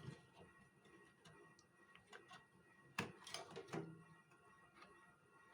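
Faint small clicks and taps from handling desktop computer parts, with a sharper click about three seconds in and a few more just after.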